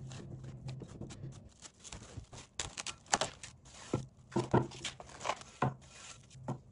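Plastic cling film crinkling and crackling as it is pulled and stretched over a glass mixing bowl, in an irregular run of sharp crackles that is loudest from a few seconds in. Before that, softer rustling as hands press down soft dough in the bowl.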